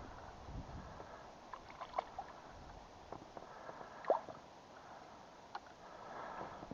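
Faint water lapping and dripping, with a few light clicks and knocks, two of them clearer, about two and four seconds in.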